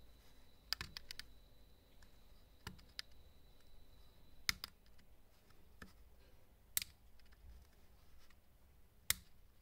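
Faint, irregular sharp clicks of a utility knife blade tip prying and slipping at the plastic housing of a computer mouse's left-button microswitch, working to unclip its cover. About ten clicks, the loudest about halfway and near the end.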